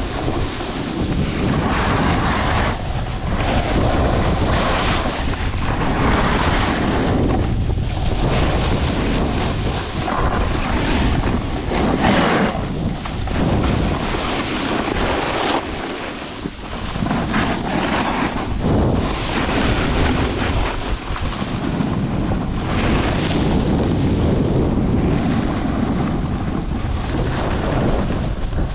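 Wind rushing over a camera's microphone while riding down a groomed ski trail, with the hiss of edges scraping the snow swelling and fading with each turn.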